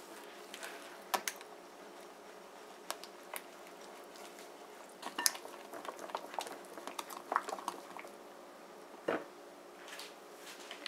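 Silicone spatula stirring wet cake batter in a glass bowl: faint squelching with scattered clicks of the spatula against the glass, over a faint steady hum.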